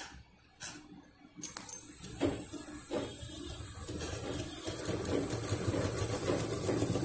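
Domestic sewing machine stitching a seam through layered fabric. It starts running about a second and a half in and keeps going steadily, growing louder.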